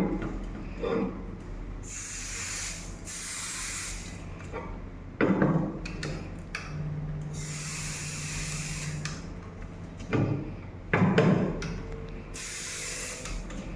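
Aerosol can of magnetic particle ink spraying in four short hissing bursts onto a weld specimen, the third about two seconds long. There are handling knocks between the bursts and a low steady hum under the third burst.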